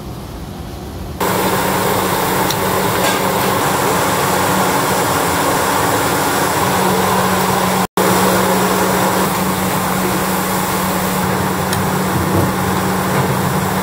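Bak kut teh pork broth boiling hard in a pot on the stove: a loud, steady rushing with a low, even hum. It starts abruptly about a second in and drops out for an instant about eight seconds in.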